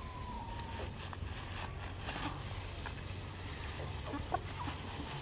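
Rice grains poured from a container into a plastic bucket, an irregular pattering rustle, with a few short chicken calls about four seconds in.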